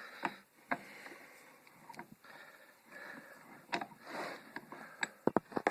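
Scattered clicks and knocks with rustling as bicycle parts and tools are handled, with a quick run of clicks near the end.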